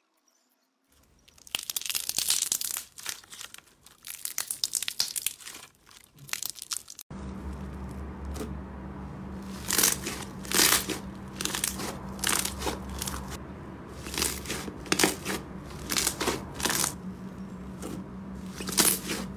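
Clear slime being stretched and pulled by hand, with a dense run of crackling clicks starting about a second in. After a cut about seven seconds in, a thick, stringy slime is squeezed and poked by hand, giving sharp clicks and pops over a steady low hum.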